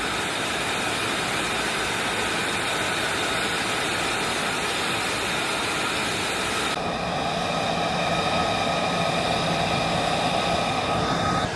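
Jet aircraft engine running steadily: a continuous rushing noise with a high whine. About two-thirds of the way through, the sound shifts abruptly to a similar engine sound in a different shot.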